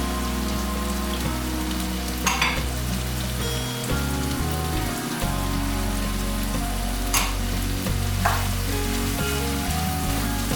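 Food sizzling in a frying pan, with three brief clicks about two, seven and eight seconds in.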